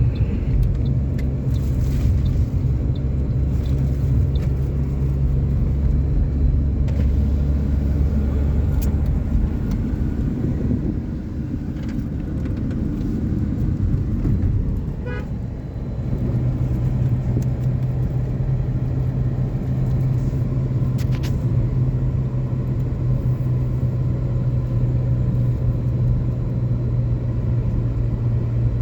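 A motor vehicle's engine and road noise while driving: a steady low hum that eases for a few seconds around the middle, then picks up again.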